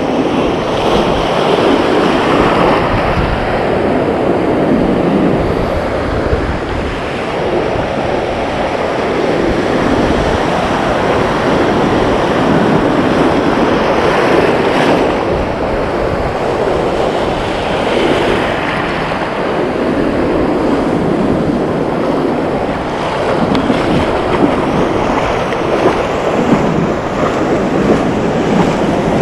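Ocean surf breaking and washing through the shallows close to the microphone, swelling and easing every few seconds as each wave rolls in, with wind rumbling on the microphone underneath.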